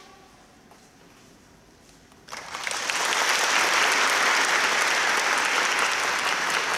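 Audience applauding, breaking out suddenly about two seconds in after a quiet pause and holding steady.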